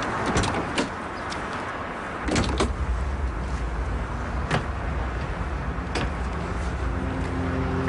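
Vehicle door handling: a few sharp clicks and knocks. From about two seconds in there is a steady low rumble of traffic with occasional knocks, and music comes in near the end.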